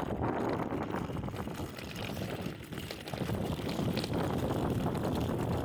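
Wind rushing over the microphone and low rumble from riding a Yume Y10 electric scooter over bumpy dirt. The noise eases briefly about two and a half seconds in.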